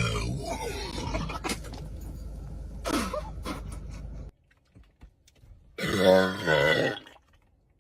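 A person lets out a loud, rumbling burp lasting over a second, about six seconds in, after chugging Sprite: the burp that fails the Sprite challenge. Before it, a noisy stretch with scattered vocal sounds cuts off suddenly about four seconds in.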